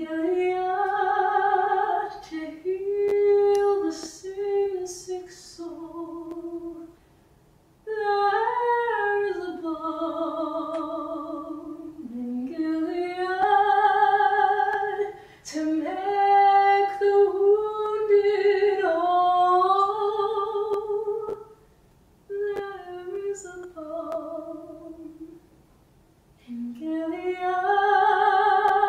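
A woman singing solo, unaccompanied, in long held notes with vibrato, in several phrases with short breaks between them.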